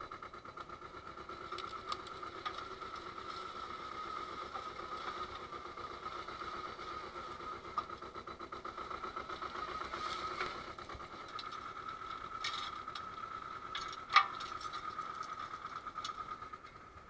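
Small Antonio Carraro tractor's engine running steadily, with a fine even pulse and a steady hum. Over it come a few sharp metallic clanks and chain rattles from the forestry winch, the loudest about fourteen seconds in.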